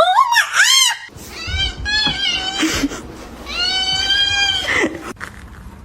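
A cat meowing several times: short rising-and-falling meows in the first two seconds, then one long drawn-out meow near the middle.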